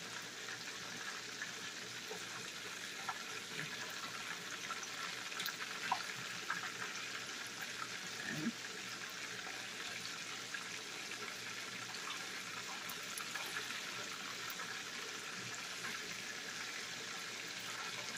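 Chicken wings deep-frying in peanut oil in a skillet: a steady sizzle with a few small clicks and pops scattered through it as the pieces are turned with tongs.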